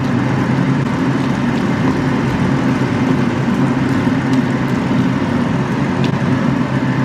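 Cooker-hood extractor fan running steadily: a loud rush of air with a low hum.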